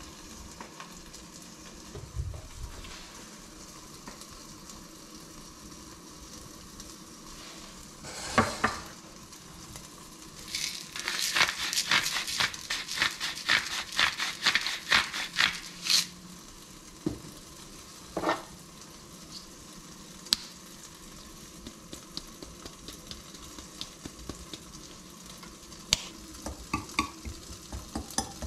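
Kitchen prep in a stainless steel bowl: a few scattered knocks and scrapes, then a hand salt mill being turned, a dense run of rapid gritty crunching for about five seconds around the middle. Near the end a quick run of ticks starts as the ingredients are stirred in the metal bowl.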